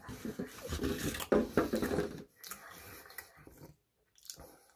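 Foam takeout container rubbing and squeaking as a hand lifts food out of it. Near the end comes a short sharp bite into a piece of fried food.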